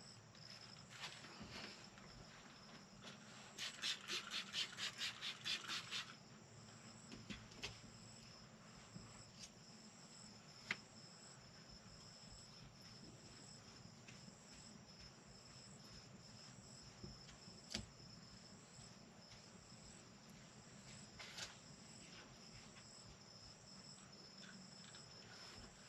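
Crickets chirping steadily in the background. About three seconds in, a quick run of about a dozen squirts from a spray bottle wetting a window, then a few faint clicks as the glass is wiped.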